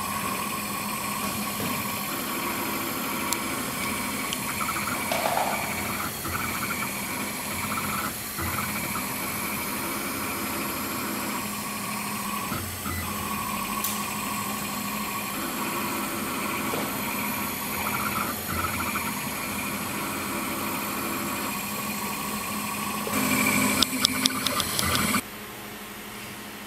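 Faro F1 four-axis CNC engraving machine texturing a pen barrel: a steady mechanical hum with whining tones that switch on and off every few seconds as the spindle and axis motors work through the cut. Near the end there is a louder run of rapid ticks, then the machine sound stops abruptly, leaving a quieter hum.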